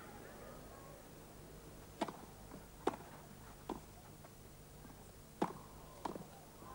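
Tennis ball struck back and forth with racquets during a grass-court rally: five sharp pops, the first about two seconds in, then roughly one a second, over a faint crowd hush.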